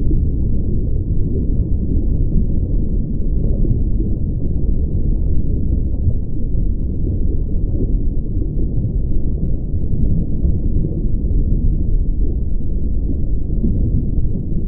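Steady, muffled low rumble with no distinct events and nothing above the lower mid-range.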